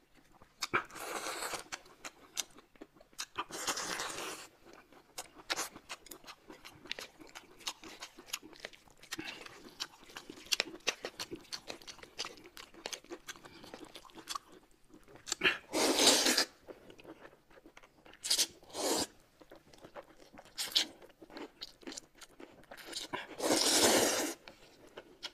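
Close-miked eating sounds: chewing and lip smacks throughout, broken by several loud slurps of noodles. The longest and loudest slurp comes near the end.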